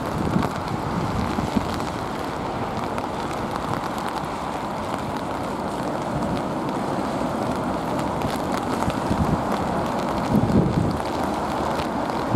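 Steady jet noise from an Airbus A380's four engines on the wet runway, mixed with storm wind buffeting the microphone. A stronger gust comes about ten seconds in.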